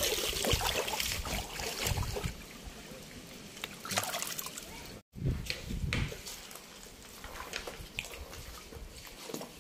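Water trickling and splashing, with scattered clicks and low thumps; the sound drops out completely for a moment about halfway through.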